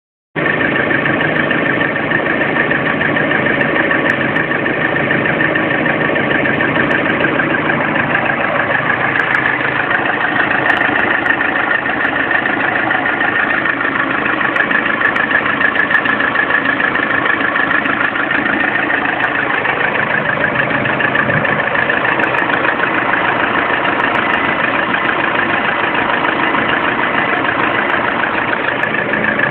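Lada Priora's four-cylinder engine idling warm, with a fast, steady knocking running through the idle: a knock that shows up at idle once the engine is warmed up.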